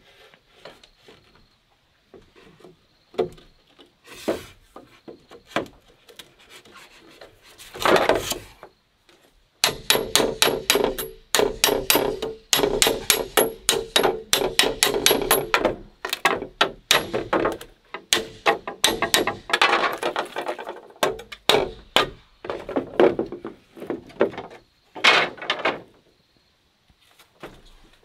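A knife striking and scraping wood in quick repeated strokes. It comes in scattered knocks at first, then a dense run of several strokes a second from about a third of the way in until past the middle.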